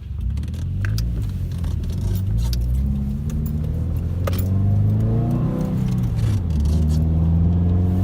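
Subaru WRX's turbocharged flat-four engine heard from inside the cabin while driving. Its pitch rises over the first few seconds, falls about halfway through, then holds steady, with light clicks and rattles throughout.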